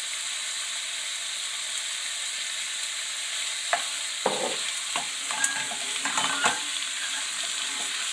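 Diced chicken and onion sizzling steadily in a frying pan. From about four seconds in, a wooden spoon scrapes and knocks against the pan as the food is stirred.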